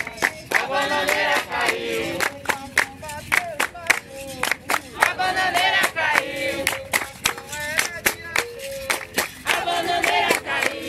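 Capoeira roda music: a group singing in phrases over a berimbau, while the circle claps a steady beat.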